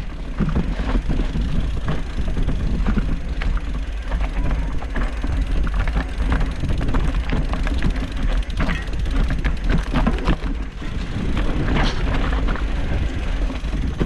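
Mountain bike clattering and rattling over a rough, stony singletrack trail, a dense run of knocks and clicks from the tyres and frame, over a steady low rumble.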